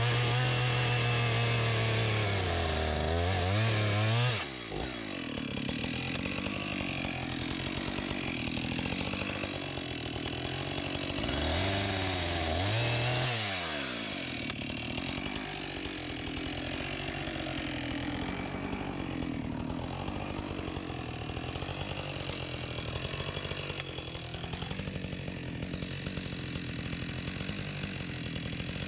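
Husqvarna 576 XP two-stroke chainsaw with a 24-inch bar running at high revs while cutting a log. The engine speed drops and climbs back twice, about four seconds in and again around twelve seconds, and otherwise runs at a lower, slightly wavering pitch.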